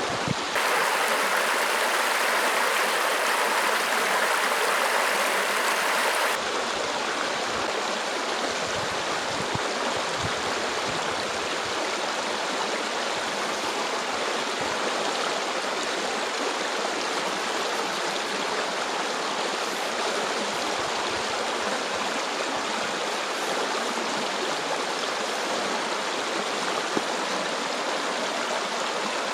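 Stream water flowing and rushing steadily. It is louder and brighter for the first six seconds or so, then drops abruptly to a slightly softer, even rush.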